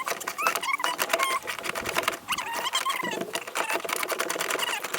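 Rapid, continuous mechanical clicking, typical of a ratchet wrench turning a fastener, with high wavering chirps over it.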